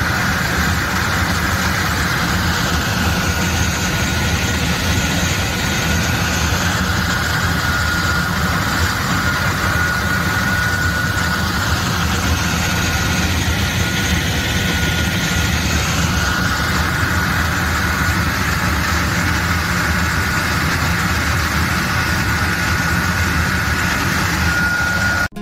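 Tractor-mounted cannon air-blast sprayer running, its double 500 mm centrifugal turbine fan driven from the tractor's PTO and blowing spray mist with a steady loud rush and a high whine that swells and fades, over the tractor engine's low drone.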